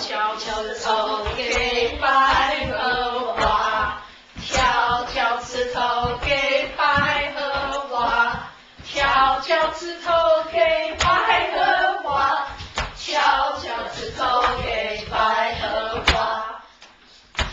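A mixed group of children and adults singing a Mandarin children's song together in phrases about four seconds long, with a few hand claps.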